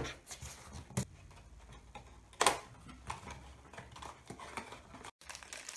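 A small blind-box package being opened by hand: a few sharp clicks and taps with light rustling of packaging in between.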